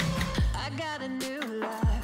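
Background music: a song with a melody gliding up and down over a steady bass line, punctuated by two deep kick-drum hits.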